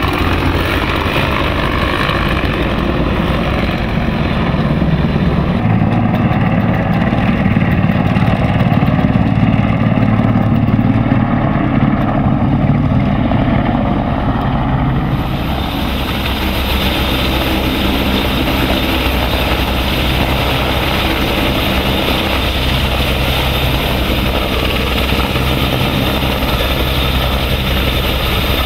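Aircraft engine noise: a paramotor's small engine and propeller running in flight, changing about halfway through to the steady rotor and turbine sound of a large military helicopter flying low.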